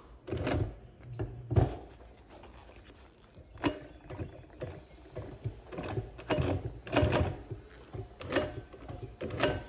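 Highlead double-needle industrial sewing machine stitching vinyl upholstery slowly in short starts and stops, giving a few separate knocks of the needle mechanism with a low motor hum under some of them.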